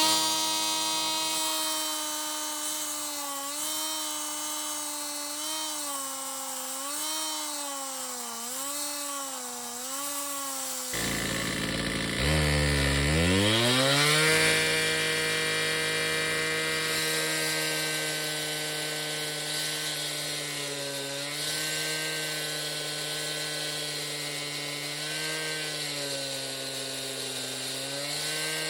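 Gas-powered concrete cut-off saw revving up and running at high speed, its pitch dipping and recovering again and again as the blade loads up in the concrete. About eleven seconds in the sound breaks off, revs up again and settles into a steadier, lower running note with smaller dips.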